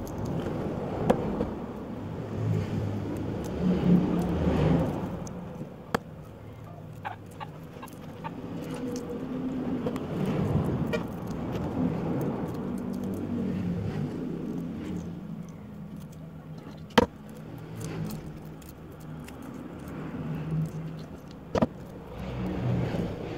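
Motor vehicle engines passing, swelling and fading several times, with a few sharp clicks and taps in between.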